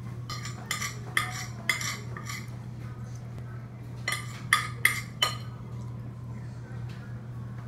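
Metal fork scraping and clinking against a plate while scooping macaroni: a group of about four strokes in the first two and a half seconds, then another group of about four between four and five and a half seconds in. A steady low hum runs underneath.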